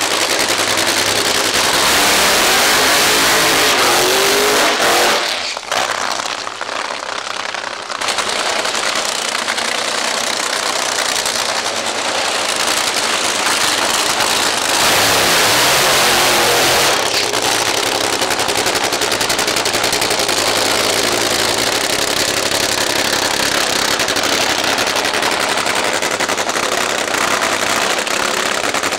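Supercharged nitromethane V8 engines of Top Fuel drag cars running loud, in several segments that change abruptly.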